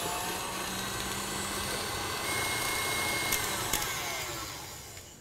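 KitchenAid stand mixer's motor running steadily as its paddle creams softened butter until fluffy, then slowing and stopping near the end.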